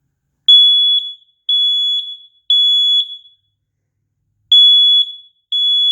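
Smoke alarm sounding its test alarm: loud, high-pitched beeps in the temporal-three pattern, three beeps, a pause, then three more. This is the standard smoke-alarm evacuation signal.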